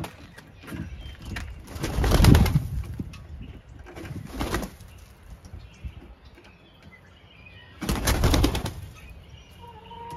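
Chickens flapping their wings in three loud bursts, about two, four and a half and eight seconds in, with soft calls and chirps between and a low call near the end.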